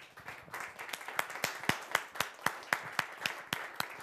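Audience applauding, building up within the first half second, with one nearby person's claps standing out at about four a second.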